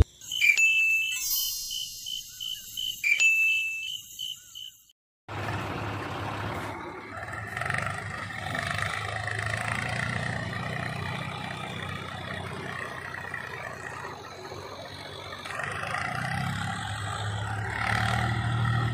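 A few bright chime-like dings, then after a short break the small electric motor of a toy tractor running steadily with a low hum as it drives.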